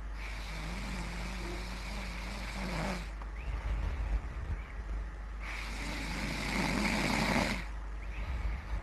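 A person snoring: two long, rough snores, the first carrying a low droning tone for about three seconds, the second louder, starting about five and a half seconds in and lasting about two seconds, with quieter breaths between. A steady low hum runs underneath.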